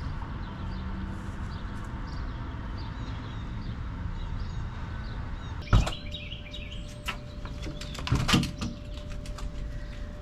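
Birds chirping faintly, then a sharp knock about six seconds in and a short clatter of knocks a couple of seconds later.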